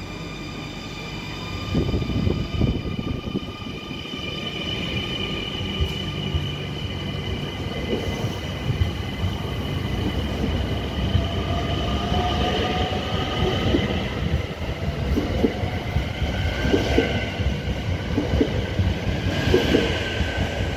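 NS Sprinter New Generation electric multiple unit pulling out of the station. Its electric drive gives several steady high whines and a tone that rises as the train gathers speed, over a low rumble and clatter of the wheels on the track.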